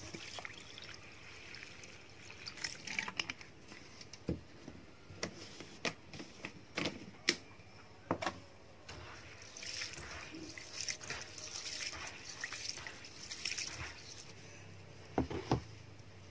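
Basmati rice being rinsed in a plastic bowl: water pours in, trickles and splashes as the rice is swirled, with many light clicks of grains and hand against the bowl. Two or three sharp knocks come near the end.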